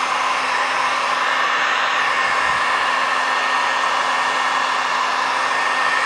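Vvivid Rev handheld heat gun running steadily, its fan blowing hot air onto vinyl tint film to soften it for stretching: a constant rush of air with a faint low motor hum underneath.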